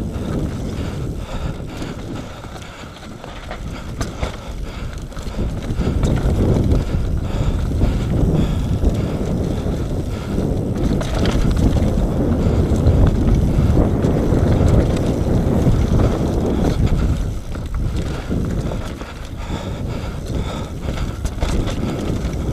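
Wind buffeting the camera microphone as a Nukeproof Mega 275 enduro mountain bike descends a dirt trail at speed, mixed with tyre rumble and the rattle of the bike over the ground. It grows louder from about six seconds in and eases briefly a few seconds before the end.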